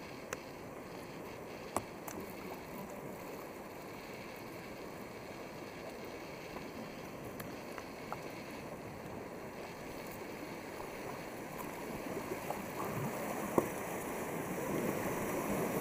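Paddling an inflatable kayak on slow water: paddle blades dipping and water sloshing against the hull. The water noise grows louder near the end, with one sharp knock shortly before.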